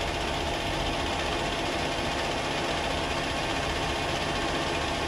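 Myford metal lathe running steadily while taking a light scratch cut along a drive shaft.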